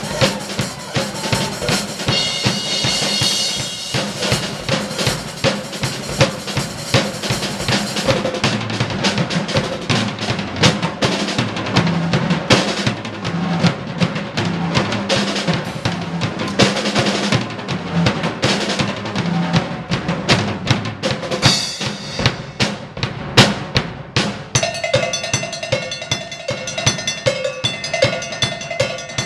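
Two acoustic drum kits played together as a duet: rapid bass drum, snare and tom strokes with cymbals, and a bright cymbal crash wash about two seconds in. Near the end the drumming thins and a steady, evenly repeated metallic beat takes over.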